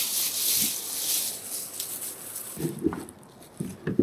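Loud rustling and crackling of dumped garden waste and rubbish being pulled about by hand, fading out about two to three seconds in, followed by a few short low sounds near the end.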